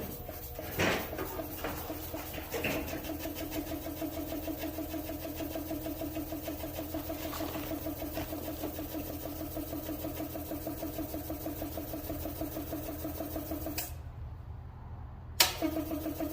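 Electric air compressor running with a steady, pulsing hum that starts about three seconds in after a couple of knocks, cuts out briefly near the end and comes back on with a click; the compressor is malfunctioning.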